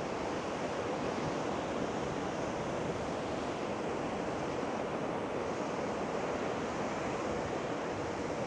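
Ocean surf breaking on a sandy beach, a steady wash of waves mixed with wind on the microphone.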